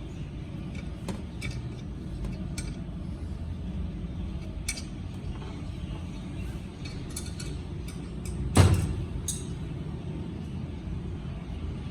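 Light metallic clinks and clicks of tools being handled, with one loud knock about eight and a half seconds in, over a steady low rumble.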